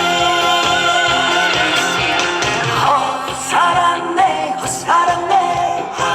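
Trot song music from a live concert: the band carries a held, then gliding melody line over a steady beat between the sung lines.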